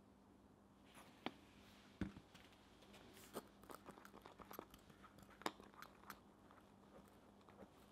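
Wooden stick stirring dry black powder and dish soap in a tin can. About a second in, faint gritty scraping starts, broken by irregular light knocks of the stick against the can.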